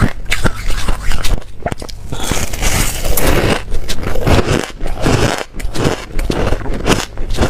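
Close-up crunching of snow ice being bitten and chewed, in quick irregular crackles, with a longer rough scraping sound about two to three and a half seconds in.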